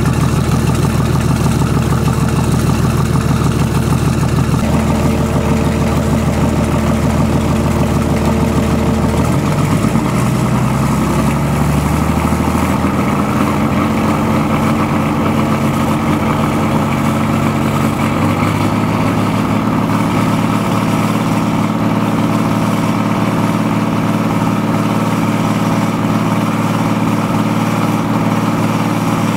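VM/BMW D190 marine diesel engine running on a test stand, its speed rising about ten seconds in and then holding steady, with cooling water splashing from the wet exhaust hose onto the ground. It runs badly, which the owner puts down to a leaking shaft seal at the front of the injection pump letting air into the fuel.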